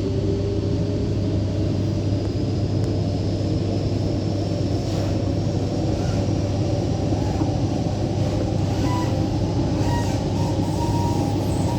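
Rotem-built MTR electric multiple unit train running on the Tseung Kwan O Line, heard from inside the carriage. A steady rumble of wheels on track is joined by a whine that rises slowly in pitch over the first several seconds.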